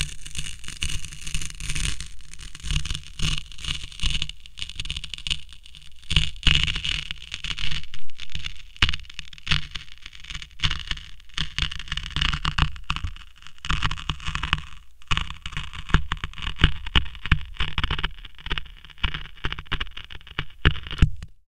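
A paper towel being slowly torn, picked up through the wood by a piezo disc contact microphone glued to a wooden box: a dense, uneven crackle of individual fibers tearing and breaking. It cuts off sharply near the end.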